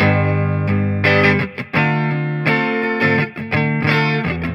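Harley Benton TE-52 Telecaster-style electric guitar played clean through a Peavey Valve King VK112 valve combo: a run of chords and notes, each struck and left to ring, about one to two a second.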